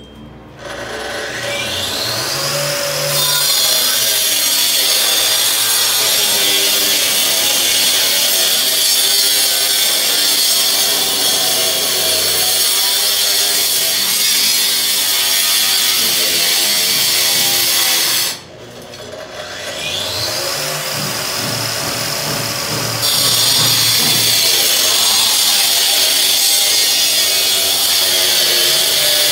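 Makita twin-disc wall chaser cutting parallel grooves into a brick wall for electrical conduit. The motor whines up to speed about half a second in and runs steadily through the cut, then drops out briefly about two-thirds of the way through and spins up again to carry on cutting.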